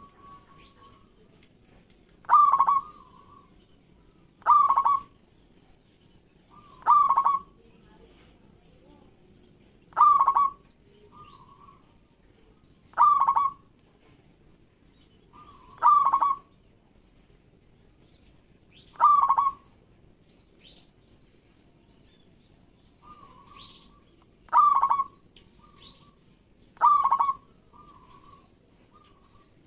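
Zebra dove (perkutut) cooing: nine loud, short coos spaced two to three seconds apart, with a longer pause in the middle, some followed by softer trailing notes.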